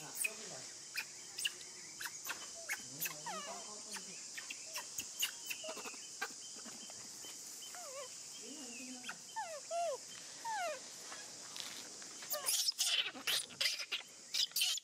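Steady high-pitched insect drone under short, rising and falling animal calls and scattered sharp clicks. A run of louder clicks and rustles comes near the end.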